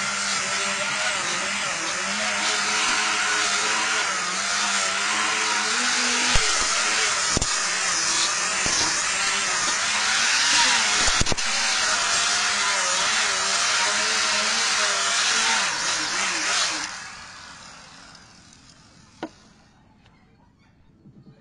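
Electric angle grinder with a sanding disc sanding a flat wooden panel, its motor whine wavering as the disc is pressed into and moved across the wood. About seventeen seconds in it is switched off and winds down.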